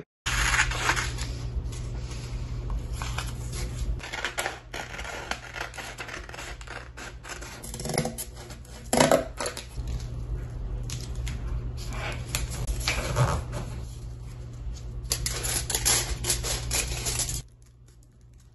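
Irregular clicking, tapping and rustling over a steady low electrical hum. The hum and clicks cut off suddenly near the end.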